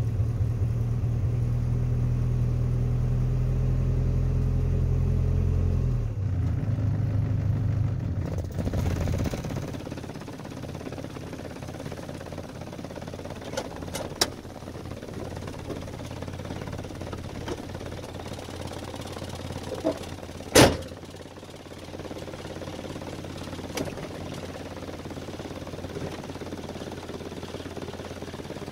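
Vehicle engine idling steadily while warming up after a cold start, heard from inside the cab. About nine seconds in, the engine sound drops away to a much quieter steady sound; a few clicks follow, and one sharp knock about twenty seconds in is the loudest moment.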